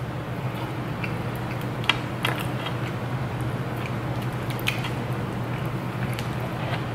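Close-miked chewing of crispy fried chicken and the crackle of its crust being torn apart by hand: scattered wet clicks and crunches over a steady low hum.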